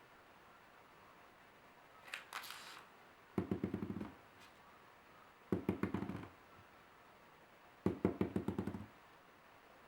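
A brief crinkle, then three short bursts of rapid rattling clicks, about two seconds apart.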